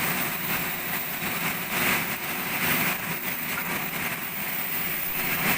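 Steady mechanical din of running workshop machinery, an even engine-like noise with no single knock or strike standing out.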